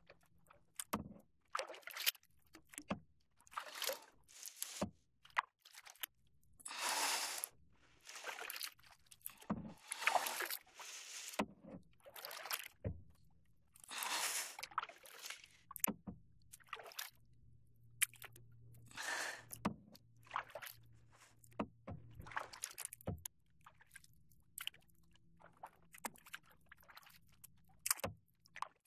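Kayak paddle strokes in calm water: the blades dipping and pulling through with splashing and dripping, about one stroke every one to two seconds in an uneven rhythm.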